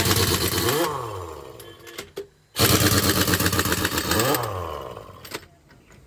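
Pneumatic impact wrench hammering on a truck's wheel nuts in two bursts of about two seconds each, with a short gap between them. Each burst falls in pitch and fades as the tool winds down.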